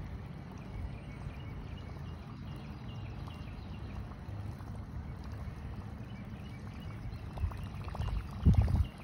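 Spinning reel being cranked on a lure retrieve, a faint regular ticking about twice a second, under a steady low rumble of wind on the microphone. A louder rumble of wind or handling noise comes near the end.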